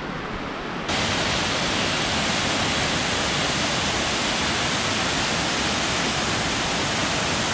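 Steady rush of water from a waterfall cascade, a loud even roar that jumps suddenly louder and brighter about a second in.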